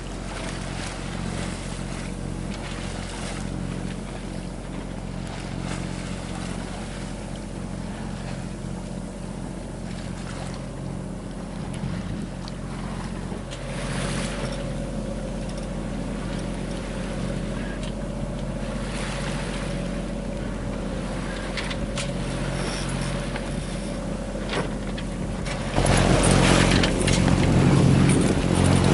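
A sailboat's inboard diesel engine running steadily while motor sailing, with washes of water noise from waves along the hull. A louder rush of noise comes in near the end.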